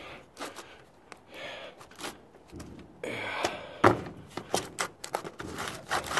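Bricks knocking and scraping as they are lifted, shifted and set down by hand on a metal roof patch: irregular sharp knocks, the loudest about four seconds in, between short stretches of scraping.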